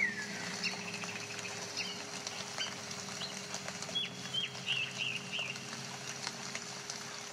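Birds chirping now and then, with a quick run of chirps about four seconds in, over a steady low hum.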